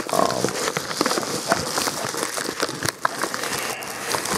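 Paper packaging rustling and crinkling as a padded mailer is handled and slid against a cardboard shipping box, with many small sharp crackles close together.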